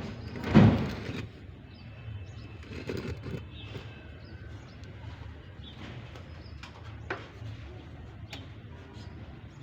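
One loud clunk about half a second in, followed by scattered light knocks and clicks.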